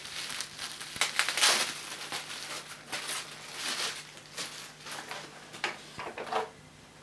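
Plastic bubble wrap crinkling and rustling as it is pulled off a plastic handle, in irregular bursts, loudest about a second and a half in.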